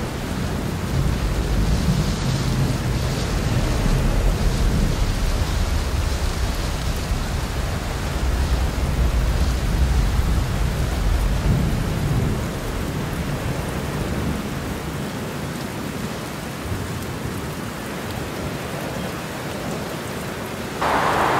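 Steady rain with thunder rumbling low through the first half, the rumble dying away after about twelve seconds. Near the end the sound jumps suddenly to a louder, brighter hiss.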